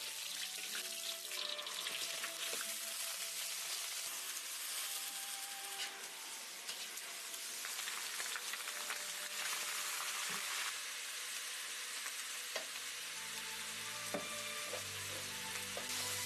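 Food sizzling steadily as it fries in hot oil in a pan, with a few light clicks toward the end.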